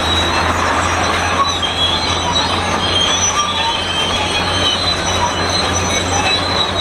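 Shantui SD32 crawler bulldozer working, with high, wavering metallic squeals and creaks over the steady drone of its engine. The squeaking is like an unlubricated cart's.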